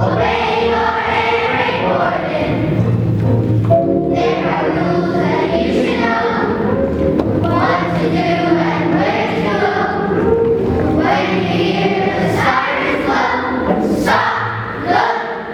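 A group of Year 4 children singing together in unison over a musical accompaniment.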